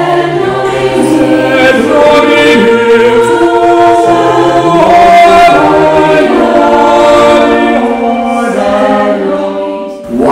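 A schola cantorum, a small a cappella choir, singing slow held chords in several parts, the voices moving together from note to note; it fades down just before the end.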